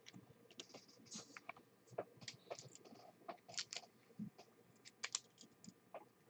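Faint, irregular light clicks and taps, a few each second, from hands working at a desk. They stop shortly before six seconds in.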